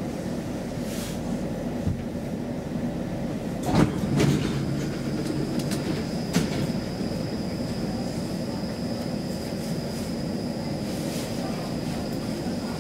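Stockholm Metro C20 train standing at a platform, heard inside the car: the steady hum of its onboard equipment, with a couple of clunks about four seconds in and a smaller one a couple of seconds later. Right after the clunks a thin high whine starts and holds steady.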